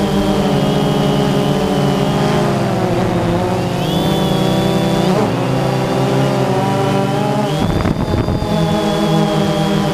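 Multirotor drone's motors and propellers whining steadily, the pitch sagging and recovering several times, most deeply about eight seconds in.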